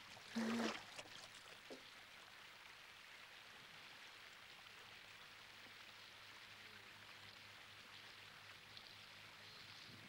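Faint steady hiss of running water in a cartoon's background ambience, with a brief louder sound about half a second in.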